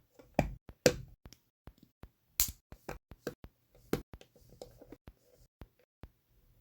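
Plastic LEGO pieces clicking and tapping as they are handled, set down and pressed together: a string of sharp, irregular clicks, the loudest about half a second, one second, two and a half and four seconds in.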